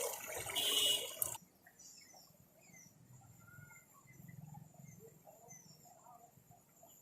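High-pressure water gushing from a tube well outlet, which cuts off abruptly about a second and a half in. After it, birds chirp faintly over a quiet background.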